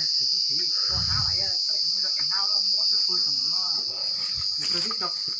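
A steady, high-pitched chorus of insects, with quieter talking underneath.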